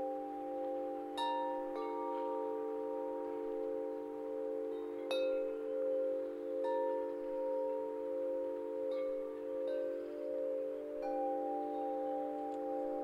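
Wind chimes ringing, with a new struck, ringing note every second or two over a steady, wavering hum of lower sustained tones.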